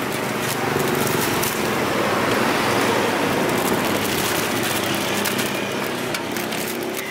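Street traffic: a motor vehicle passing, swelling and then fading. Light clicks and crinkles from a plastic bag being filled with sliced mango.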